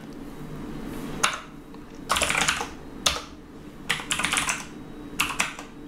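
Computer keyboard being typed on in several short bursts of quick keystrokes, with pauses between them.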